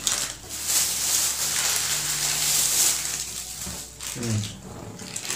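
Thin plastic food bag crinkling and rustling as it is handled over a bowl. The sound is loud for about three and a half seconds, then dies away.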